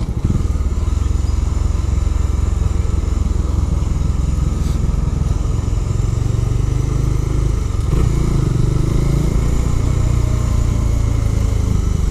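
Bajaj Dominar 400's single-cylinder engine running steadily while riding, heard from the bike itself. The engine note dips briefly a little past halfway, then picks up again.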